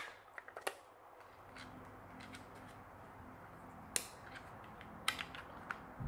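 A few sharp plastic clicks and taps, the loudest about four seconds in, as a cylindrical lithium-ion battery is pressed against the spring into a small fan's battery compartment and the compartment is closed.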